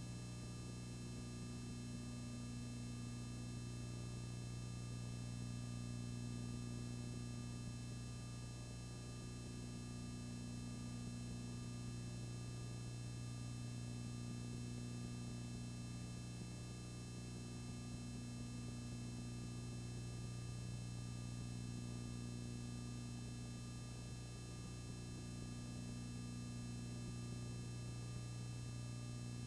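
Steady electrical hum with a stack of overtones over faint hiss, unchanging throughout, with no other sound.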